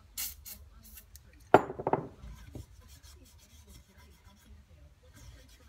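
Two short hissing bursts, then a loud metal clank that rings briefly as a part is handled on the bench, followed by faint rubbing and handling noises.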